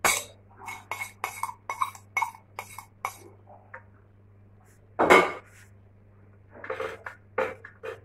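A spoon clinking and scraping against a frying pan as mayonnaise is spread over a flatbread in it: a quick run of short clicks and scrapes, one louder thump about five seconds in, then more clicks near the end.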